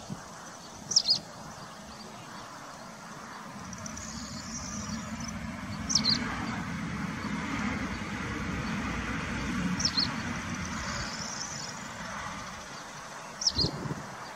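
A small bird repeats a short, high double chirp four times, about every four seconds, with a fainter twittering between the calls. Under it a low rumble swells and fades in the middle, like a distant vehicle passing.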